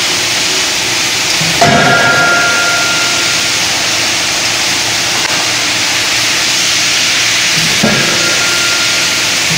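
A 25 kJ closed-die forging hammer striking hot metal in the die: two heavy blows about six seconds apart, each leaving a short metallic ring, over a steady loud hiss.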